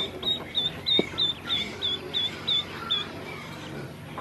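Ducklings peeping: a quick run of short, high peeps, about three or four a second, that stops about three seconds in, with softer, lower peeps among them. A single light knock comes about a second in.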